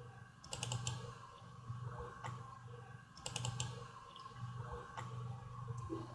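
Clicking of a computer mouse. A quick burst of clicks comes about half a second in and another around three and a half seconds, with single clicks in between, all over a steady low hum.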